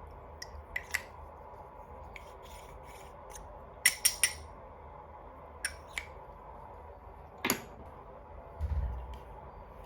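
Small hard plastic pieces being handled: scattered light clicks and taps, with a louder quick cluster of clicks about four seconds in and a dull low thump near the end.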